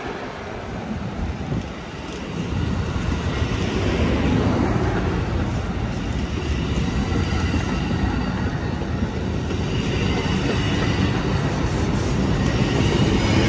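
Departing Amtrak passenger train of bi-level cars rolling past at close range, a steady rumble of wheels on rail. It grows louder about two seconds in and again near the end as the train gathers speed.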